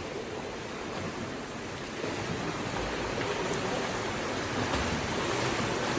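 Steady splashing and churning of water from a swimmer's strokes in a pool, growing slowly louder.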